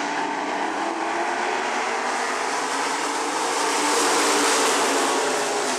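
Pack of Pure Stock dirt-track race cars running at speed, many engines together as one steady drone. It swells louder about four seconds in as the field passes nearest, then eases off.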